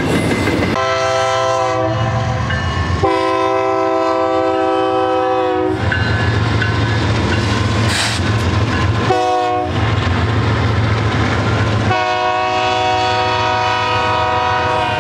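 BNSF freight locomotive's air horn blowing the grade-crossing signal: long, long, short, long, with the last blast still sounding at the end. Under the last two blasts the diesel locomotives' low rumble grows as they draw near.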